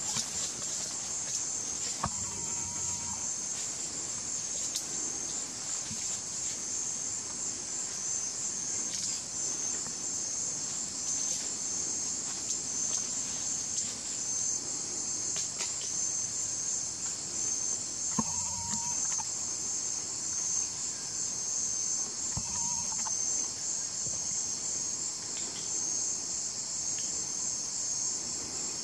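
Steady, high-pitched, finely pulsing chorus of forest insects. Three brief, lower tones break through it, one early and two later on.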